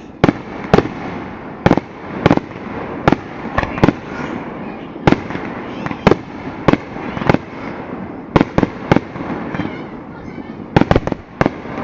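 Fireworks show: a rapid, irregular string of sharp bangs from aerial shells bursting, some two or three in quick succession, over a steady crackle and rumble.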